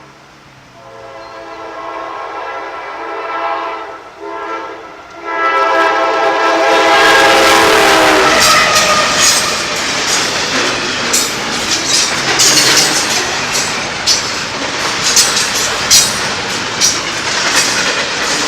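Norfolk Southern locomotive air horn sounding in three blasts, the last one long, its pitch dropping as the locomotive passes. The loud rumble of the train going by follows, with rapid clicking of wheels over rail joints.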